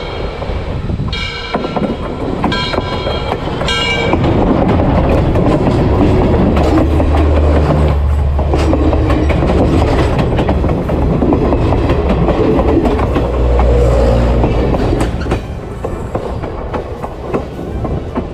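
Steam locomotive whistle giving several short blasts. Then the train rolls directly over a low trackside position: a loud, heavy rumble with wheel clatter that is strongest in the middle and eases toward the end.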